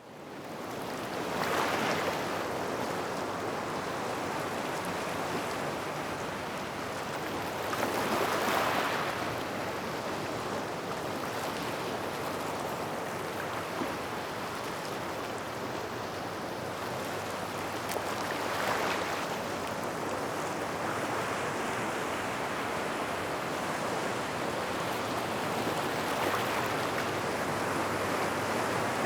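Small waves breaking and washing over a gravel beach by rocks, a steady hiss of surf with louder swells breaking about two seconds in, around eight seconds in and near nineteen seconds in. The sound fades in at the very start.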